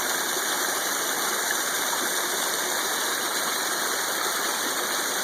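Icy waterfall rushing with a steady, even noise of falling water.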